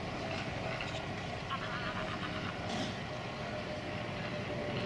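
Valach VM R5-420 five-cylinder radial engine of a half-scale Klemm Kl 25 model aircraft droning steadily in flight overhead.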